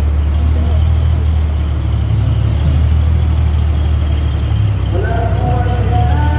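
A truck-mounted 'sound horeg' carnival sound system playing at high volume, its deep bass steady and dominant. About five seconds in, a melody of held notes comes in over the bass.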